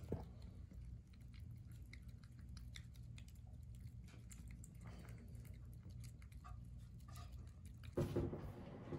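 Three-banded armadillo eating soft food from a bowl: faint chewing clicks over a low hum. A brief louder sound comes near the end.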